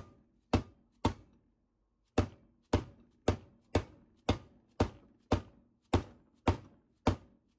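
Repeated hand taps driving a Marlin Crawler spacer into a transmission's rear bell housing to seat it: about a dozen sharp strikes, roughly two a second, with a short pause after the first three.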